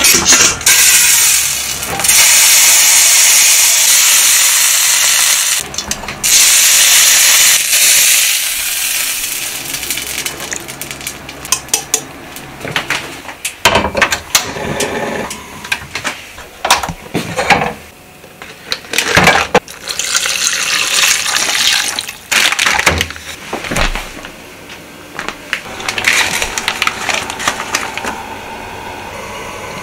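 Kitchen cooking sounds: a loud hiss from the covered pan on the stove for about the first eight seconds, then scattered clinks and knocks of pots, utensils and a plastic zip bag being handled.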